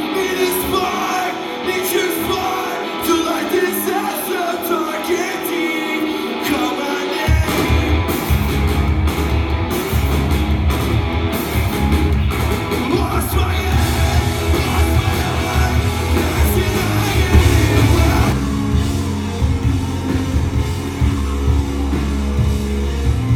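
Live rock band playing, heard from within the crowd: a singer over electric guitar, with bass and drums coming in hard about seven seconds in. The sound thins out a little about eighteen seconds in.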